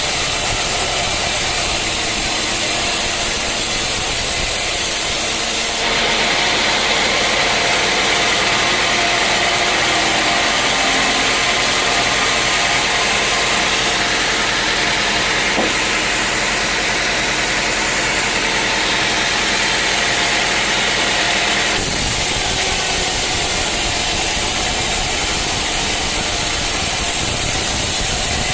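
Sawmill saw running steadily. About six seconds in, the sound turns brighter and hissier as the blade cuts through a teak log, and it drops back to the plain running sound some sixteen seconds later.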